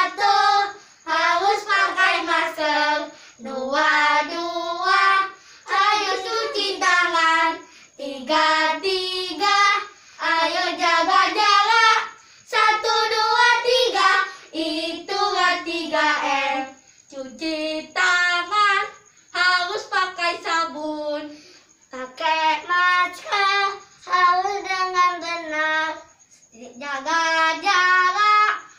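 Young boys singing a children's song together without accompaniment, in short phrases with brief pauses between lines.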